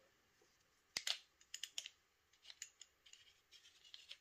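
Small clicks and light scraping of a threaded cap being turned onto the heat core of a Milsig paintball carbine. A sharp click comes about a second in, then a run of lighter clicks and ticks.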